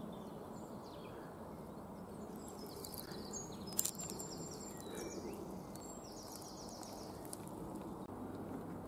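Quiet outdoor ambience: a steady low background hum with faint birdsong, runs of short high chirps mid-way through, and one brief click a little under four seconds in.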